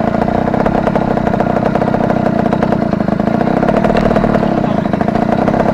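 Motocross dirt bike engine idling steadily, its even pulsing neither rising nor falling.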